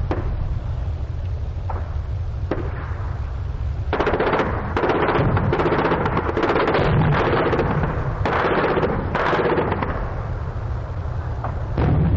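Machine-gun fire in a 1944 battlefield field recording: a few scattered single shots, then, about four seconds in, long rapid bursts for some six seconds, then more scattered shots near the end, over a steady low rumble.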